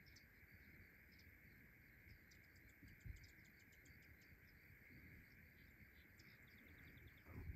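Near silence with faint insect chirping: quick runs of high ticks over a steady high insect hum, and a soft bump about three seconds in.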